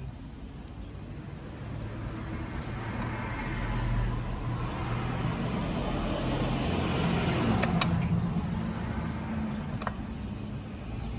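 A car passing by: its engine and tyre noise swell and then fade, with a couple of sharp clicks near the peak and another near the end.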